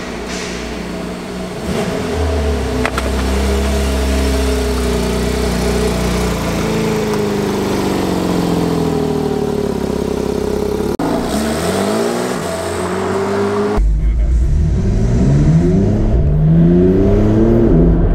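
Porsche 911 GTS flat-six engine running as the car pulls away, its pitch rising slowly. From about fourteen seconds in it accelerates hard, with repeated rising sweeps in pitch as it shifts up through the gears, heard from the car with the roof down.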